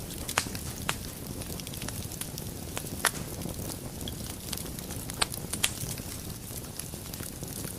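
Wood fire burning in a fireplace: a steady low rumble and hiss with sharp, irregular crackles and pops, a few of them louder, about half a second in, around three seconds in and twice in the last third.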